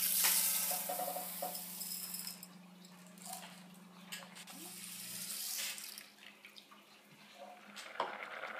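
Dry sushi rice poured from a measuring cup into a stainless steel pot, a loud hiss of falling grains in the first couple of seconds, then water poured into the pot, swelling for about a second and a half before stopping. A steady low hum runs underneath and stops near the end.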